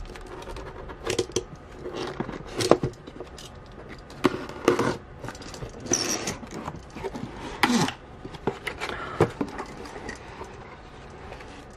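Cardboard shipping box pulled open by hand: flaps tearing free of their packing tape and scraping and crackling, in irregular bursts every second or two.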